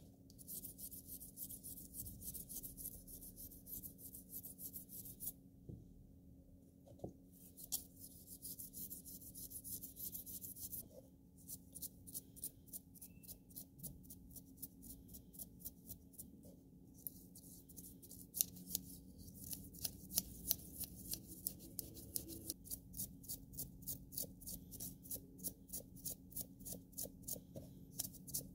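Small wire brush scrubbing a bicycle dynamo's rotor magnet and shaft, which are wet with cleaning liquid. It makes a quick scratchy rubbing of about three to four strokes a second, which stops briefly twice.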